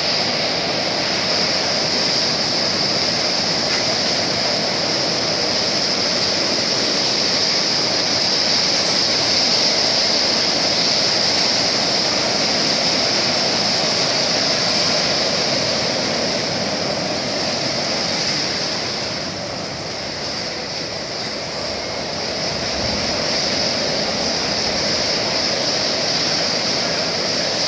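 Welding arc crackling and hissing steadily, with a short dip in level about two-thirds of the way through.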